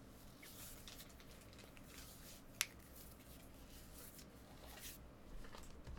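Quiet room tone with one short, sharp click about two and a half seconds in.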